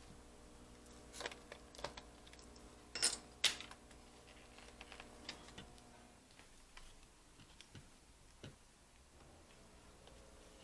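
Scattered sharp plastic clicks and taps from handling a Lenovo B575 laptop during disassembly, the two loudest about three seconds in, with fainter ticks after.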